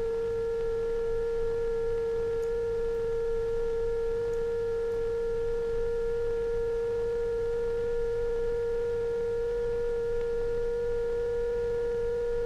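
A steady electronic sine-wave tone a little below 500 Hz, with fainter steady tones higher up. It is the film soundtrack's sine wave, which glides upward too slowly to change pitch audibly over these seconds.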